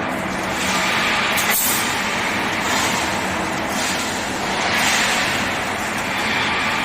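Automatic wire mesh panel welding machine running in production: steady mechanical noise and hum, with a short sharp hiss about one and a half seconds in and slow swells of noise every few seconds.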